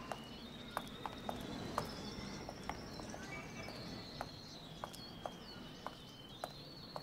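A caged songbird singing one long unbroken warbling trill that steps up and down in pitch. Sharp footsteps click on cobblestones under it.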